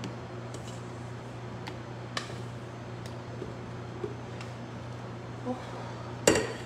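A spatula scraping whipped egg whites out of a stainless steel mixer bowl into a stainless bowl of batter: a few light clicks and taps of spatula on metal over a steady low hum, with a sharper knock near the end.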